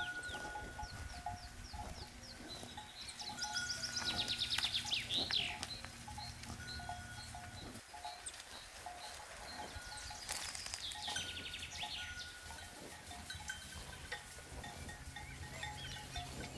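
Cowbells clanking irregularly, in short clusters of ringing strokes, as on grazing livestock, with a few high chirping calls between them.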